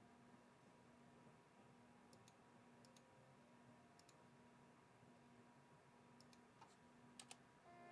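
Near silence: room tone with a faint steady hum and a few faint, scattered clicks, about five of them, two close together near the end.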